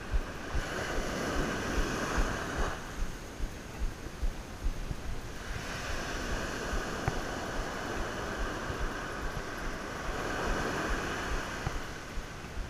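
Ocean surf breaking and washing up a sandy beach, rising and falling in two long washes, with wind buffeting the microphone.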